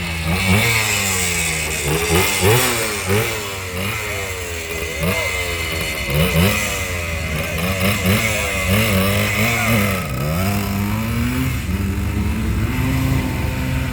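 Harley-Davidson V-twin motorcycle engines running, the throttle blipped again and again so the pitch rises and falls every second or so over a steady idle. The revs settle to a steadier run in the last few seconds.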